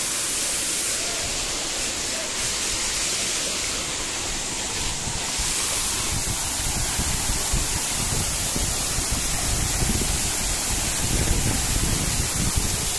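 Small waterfall splashing into a rock pool, a steady rush of falling water. Uneven low rumbling joins it in the second half.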